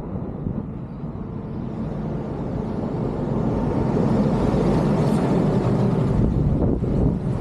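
Wind rushing over the microphone with road and tyre noise while riding an electric unicycle, growing louder after the first second or so.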